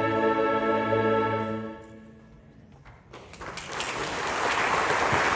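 Orchestra holding the final chord of the piece, which cuts off about two seconds in. After a brief hush, the audience breaks into applause.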